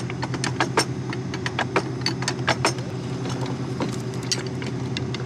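Wrenches clinking and clicking irregularly against the metal of a corn head row unit as bolts are worked loose, over the steady hum of an idling engine.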